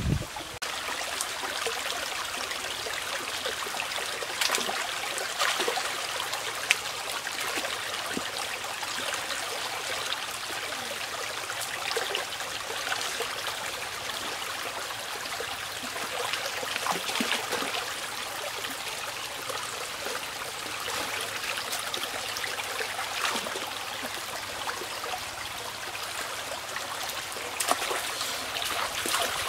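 Shallow stream trickling over rocks, with occasional light clicks.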